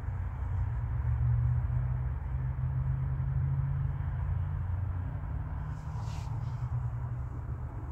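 Low, steady rumble with swelling gusts, heard from inside a car cabin as strong wind buffets the car. There is a brief faint rustle about six seconds in.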